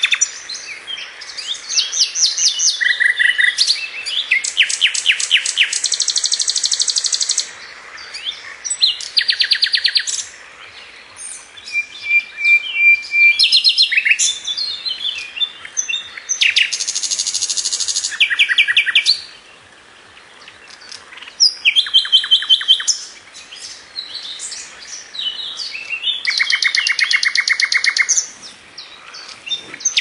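Songbird singing loudly in phrases of one to three seconds with short pauses between them, made of very fast trills, rapidly repeated notes and brief high whistles.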